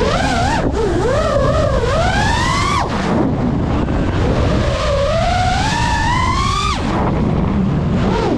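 FPV racing quadcopter's brushless motors whining, the pitch climbing and wavering as motor speed changes. It falls away abruptly about three seconds in and again near seven seconds. A steady rush of wind and prop wash runs underneath.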